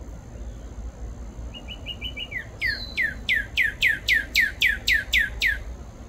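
Male northern cardinal singing: a few short, quick notes about one and a half seconds in, then a run of about eleven loud down-slurred whistles, roughly three a second, that stops just before the end.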